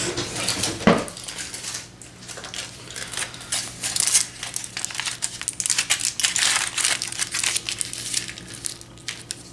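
Aluminium tin foil crinkling and crumpling in the hands as it is scrunched into a ball, in dense irregular crackles with a loud sharp crackle about a second in.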